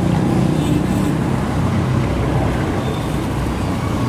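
Steady engine and road noise of a motor vehicle riding along through traffic.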